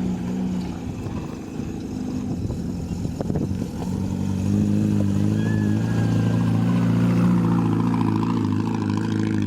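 A tour jeep's engine running, growing louder and steadier about four seconds in.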